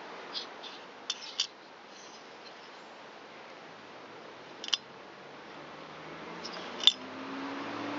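Sharp clicks and clinks of small tools and metal engine parts being handled while the engine is taken apart, a handful of separate ones with the loudest near the end.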